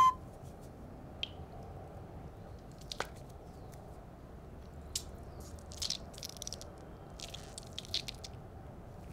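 Yellow mesh squishy stress ball being squeezed by hand, the beads inside pushing out through the mesh. It makes soft squishing and crackling noises, with a few clusters of short crackles in the second half over a faint steady hiss.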